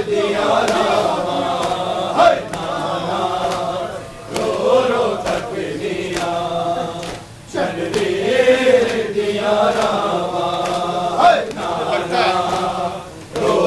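A crowd of men chanting a noha, the Shia mourning lament, together in phrases with short breaks between them. Now and then a sharp slap cuts through, matam chest-beating.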